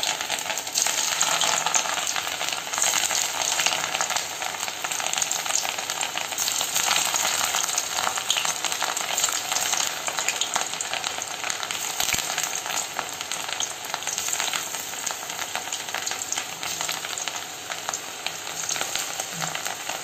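Batter-coated cauliflower florets deep-frying in hot oil: a steady, dense sizzle full of fine crackling.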